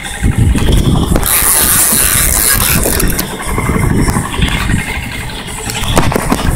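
Loud, uneven rumbling and scraping from a phone microphone being rubbed against bare skin and jostled in the wind, with scattered knocks.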